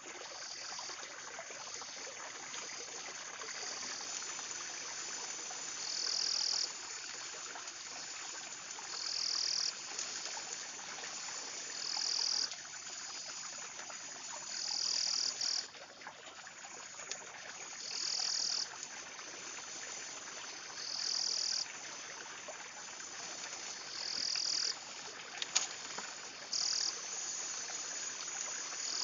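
Forest ambience: a steady high-pitched chorus of calling animals, with one louder call swelling about every three seconds, each rising and then stopping abruptly, over a faint stream-like hiss. A single sharp tick comes near the end.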